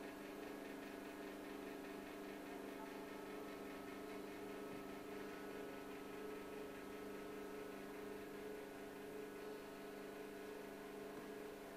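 A steady hum of several held low tones, unchanging throughout, from electrical equipment running.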